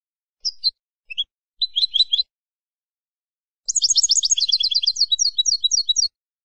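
Wild European goldfinch (jilguero campero) singing: a few short separate chirps, then a fast, tinkling twittered phrase of rapid high notes lasting about two and a half seconds.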